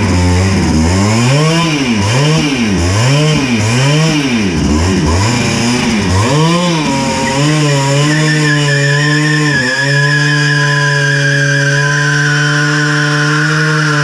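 Simson S51's two-stroke single-cylinder engine blipped to high revs about once a second, then held steady at high revs from about seven seconds in, with a thin high whine joining a second later, as the rear wheel is spun up for a burnout on wet concrete.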